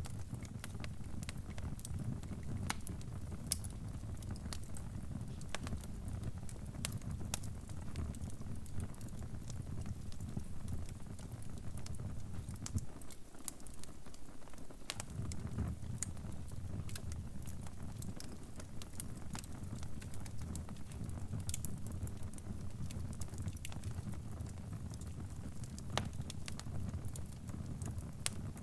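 Log fire crackling: irregular sharp pops and snaps over a low steady rumble, which drops out for a couple of seconds about halfway through.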